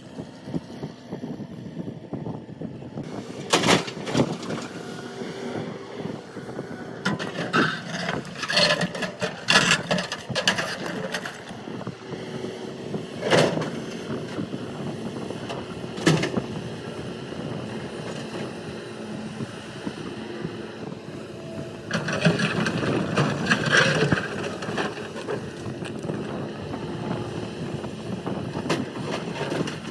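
Excavator engine running steadily while the bucket knocks and scrapes against rock in sharp, loud impacts. There is a single knock a few seconds in, a cluster about eight to eleven seconds in, two more single knocks, and a longer stretch of crunching around twenty-two to twenty-four seconds.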